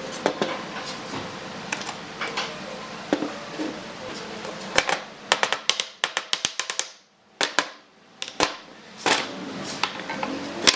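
Sharp clicks and taps of red one-handed bar clamps being worked and taken off pine boards on a wooden workbench, with a fast run of clicks about five seconds in.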